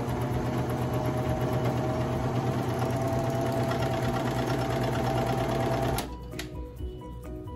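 Baby Lock Vibrant serger running steadily with a faint whine as it stitches a seam, stopping suddenly about six seconds in. Light background music follows.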